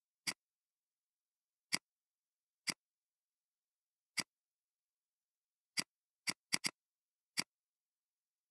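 Computer mouse clicks, about nine of them at irregular intervals over dead silence, with a quick double-click about six and a half seconds in.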